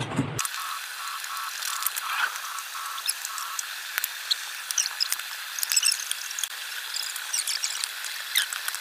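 Metal spoon stirring a cabbage and ground-meat mixture in a stainless steel bowl, with scattered sharp clinks and scrapes against the bowl and short high squeaks.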